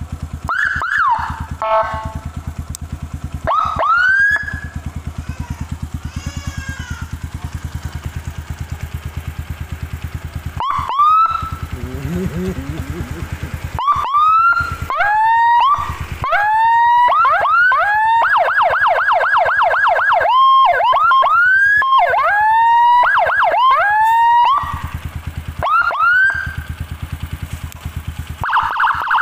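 Whelen-style 100-watt siren through a YD100 speaker on a Kawasaki KLX motorcycle, sounding in short rising whoops and chirps with a fast warble about midway. The motorcycle's engine idles steadily underneath.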